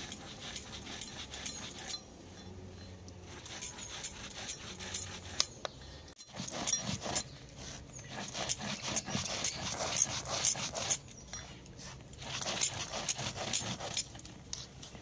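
Stone muller scraping and crunching dry-roasted whole spices against a flat grinding stone (shil-nora), in irregular strokes that grow louder from about six seconds in.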